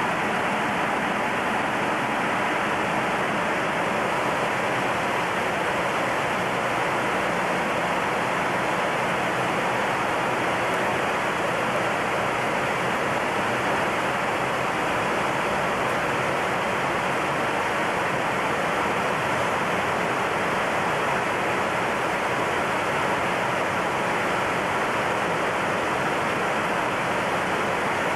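Boeing 727 flight-deck noise in cruise: a steady, even rush of air and engine noise, with faint steady tones running under it.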